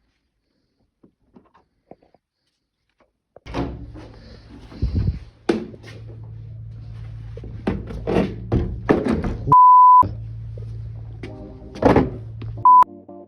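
A steady low hum with a series of sharp thuds and knocks. About two-thirds through, a one-second single-pitch bleep tone cuts out all other sound, and a second, shorter bleep comes near the end.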